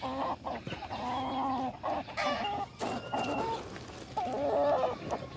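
Chickens clucking and calling, a string of repeated pitched calls one after another, the loudest about four seconds in.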